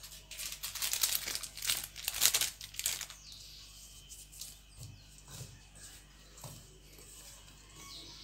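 Fingers mixing and sprinkling dry gram flour and powdered spices in a stainless steel bowl: scratchy rustling, densest for the first three seconds, then softer and sparser.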